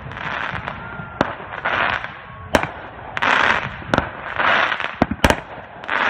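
Aerial firework shells bursting in gold crackle: sharp bangs about every second, the last two close together, each burst followed by about half a second of dense crackling as the crackling stars pop.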